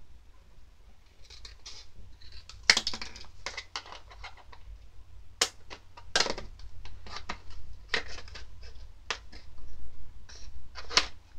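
Scissors snipping through a thin plastic mold tray from a DIY candy cake kit: a run of irregular snips and crackles of stiff plastic.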